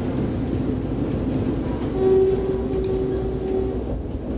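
Passenger train running, heard from inside the carriage: a steady low rumble. About two seconds in, a steady pitched tone joins it and holds for nearly two seconds.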